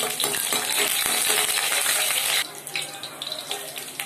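Chopped garlic and ginger sizzling in hot oil in a wok as a spatula stirs them: a loud hiss for about two and a half seconds, then dropping suddenly to a softer crackle and spatter.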